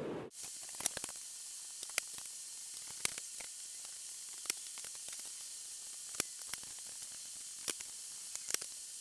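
Faint, irregular small metal clicks from a screwdriver working the spoke nipples and loosened spokes of a BMX wheel, over a steady background hiss.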